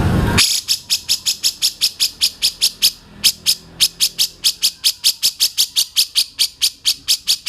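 A loud, low, engine-like sound cuts off suddenly, and a songbird begins a fast run of sharp, high chip notes, about five a second, with a brief break about three seconds in.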